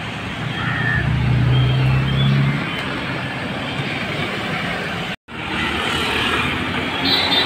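City road traffic, with a car engine running close by with a steady low note for a couple of seconds. The sound drops out for an instant about five seconds in, then traffic noise carries on.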